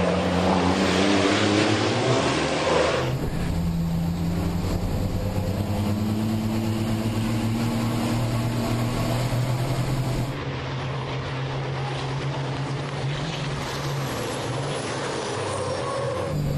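Turbo-diesel engines of racing trucks running at speed on a circuit. The first few seconds are loud and rough. It then cuts abruptly to a steadier, somewhat quieter engine note whose pitch shifts slowly, as heard from an onboard camera behind another truck.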